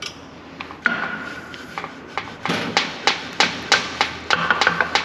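Sharp metallic clicks and clinks, about three a second in the second half, with short bursts of ringing metal, as a wrench is worked back and forth tightening a nut down on a steel suspension part.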